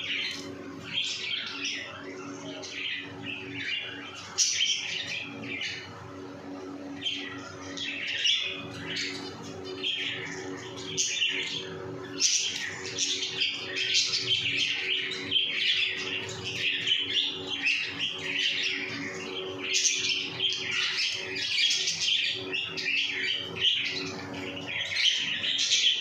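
A flock of small pet birds chirping continuously, many short high calls overlapping, over a steady low hum.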